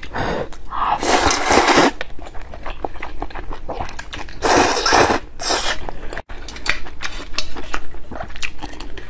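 Slurping of luosifen rice noodles with broth, two long slurps about a second in and again about four and a half seconds in, with wet chewing and mouth clicks between them.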